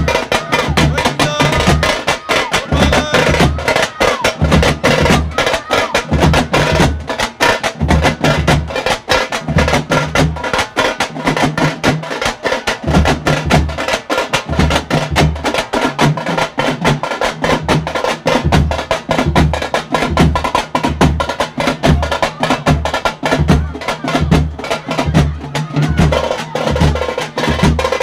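Tamil frame drums (thappu) beaten fast with sticks in a dense, driving rhythm, with a deep drum thudding about twice a second underneath.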